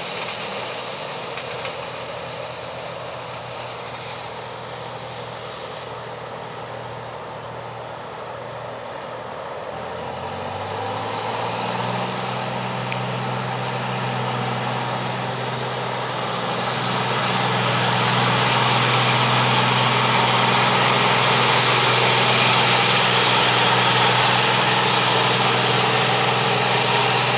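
Allis-Chalmers Gleaner N6 combine harvester running in the field. Its engine note rises and grows louder about ten seconds in. A louder rushing machine noise builds from a little past halfway and holds to the end.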